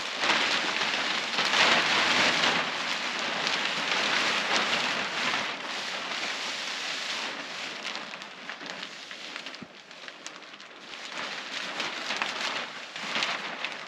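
Large black polyethylene film sheet rustling as it is dragged and spread out. It is loudest in the first half, drops away about eight seconds in, and swells again near the end.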